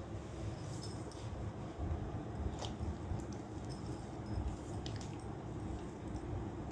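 Heavily pregnant dog, 56 days into gestation, breathing heavily, with a few faint clicks.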